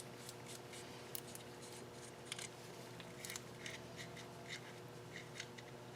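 Faint scattered clicks and light rubbing of hands handling small engine parts, over a steady low hum.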